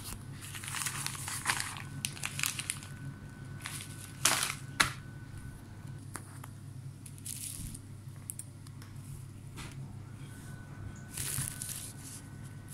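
Plastic packaging crinkling in hands in several short bursts: a frosted plastic zip bag being handled, then bubble wrap near the end.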